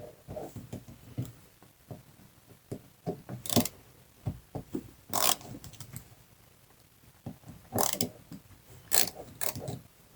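Hand-tool work on a small engine carburetor: a ratcheting screwdriver clicking and small metal parts clinking and knocking on a workbench. Four louder sharp clacks stand out among the irregular small clicks.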